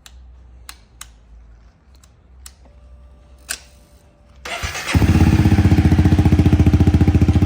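A few light clicks and a faint steady hum, then the 2017 Honda CRF250L's single-cylinder four-stroke engine is electric-started about four and a half seconds in. It catches almost at once and idles with an even, fast beat.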